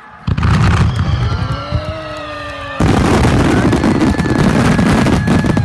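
Aerial fireworks bursting. A deep boom and rumble begins about a quarter-second in, and a second, louder volley of bursts with dense crackling comes about three seconds in.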